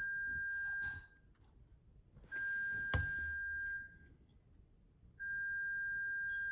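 Three long, steady, high-pitched tones, each holding one pitch for about a second and a half, evenly spaced. A single sharp click comes in the middle of the second tone.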